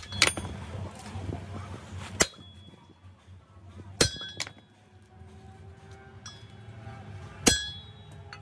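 Steel being struck with a hammer: five sharp, ringing metallic clinks spaced one to three seconds apart, over a faint low hum.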